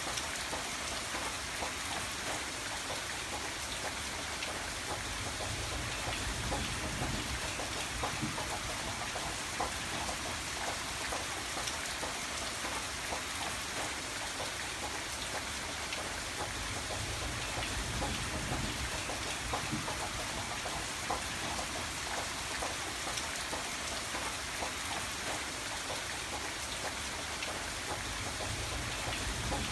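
Steady rain falling, with a dense patter of individual drops ticking over a constant hiss and a low rumble underneath.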